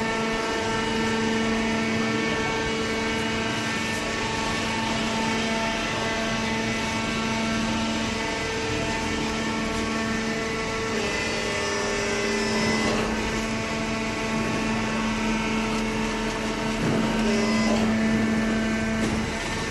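A hydraulic baler's pump and motor running, a steady hum of several held tones whose pitch shifts a couple of times partway through.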